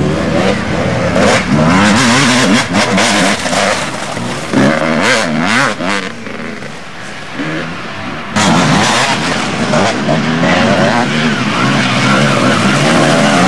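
Motocross motorcycle engines revving up and down repeatedly as the bikes work through the track. The sound jumps abruptly louder a little over eight seconds in, where the recording cuts to another stretch of track.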